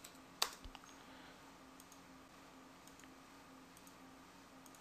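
Computer mouse clicks: one sharp click about half a second in, then a few faint clicks, over a faint steady electrical hum.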